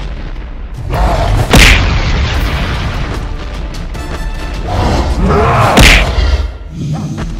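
Two loud cartoon boom sound effects, one about a second and a half in and one near six seconds, each a sudden blast with a low rumble, over steady background music.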